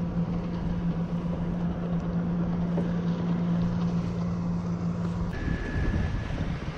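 A small motor hums steadily over wind and water noise, then stops about five seconds in. Right after it stops, a short high electronic beep sounds.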